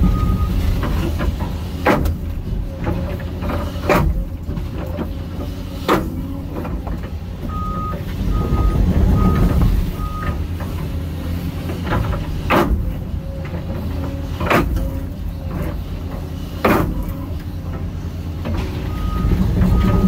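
Hyundai HX220AL excavator's diesel engine running steadily under the work, with sharp knocks about every two seconds as the bucket pats riprap stone into place. A reversing alarm beeps in short spells near the start, around the middle and near the end.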